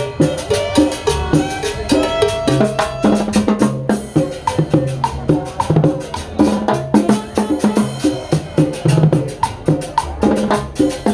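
Upbeat dance music with a steady, quick percussion beat over a repeating bass line.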